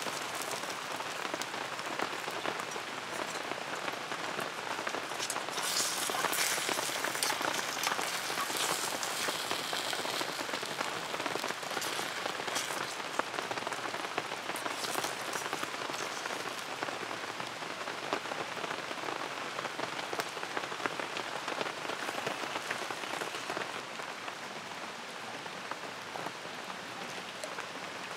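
Steady rain falling, with many sharp drops striking close by; slightly heavier for a few seconds about six seconds in, easing a little near the end.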